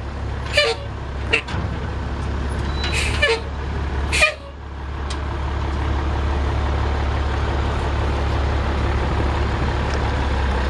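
1988 Ford L8000 dump truck's 7.8-litre six-cylinder diesel running as the truck drives off, with a few short sharp hisses in the first four seconds. From about five seconds in, the engine runs steadier and louder as the truck pulls away.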